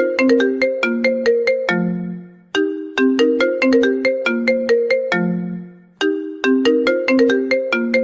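iPhone ringtone playing: a short melody of quick notes, each phrase ending on a longer low note that fades, repeating about every three and a half seconds.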